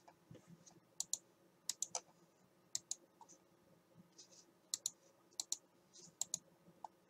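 Faint computer mouse clicks, a dozen or so spread through, many in quick pairs.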